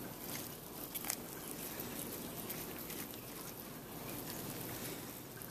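Faint handling noise of gloved fingers working through the tissue of a preserved cat's leg, with a couple of light clicks within the first second or so.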